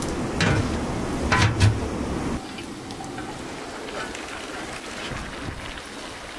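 A couple of metal clanks from a cast-iron cooking pot and its lid being handled, then, after about two and a half seconds, rice boiling hard in water, a steady bubbling hiss.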